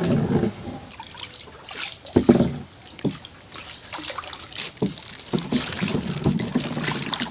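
Water trickling and sloshing as a wet fishing net holding freshly caught fish is handled, with a few sharp knocks about two, three and five seconds in.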